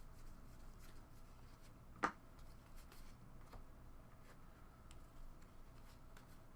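Faint handling of trading cards being sorted, with light rustles and ticks and one sharp click about two seconds in.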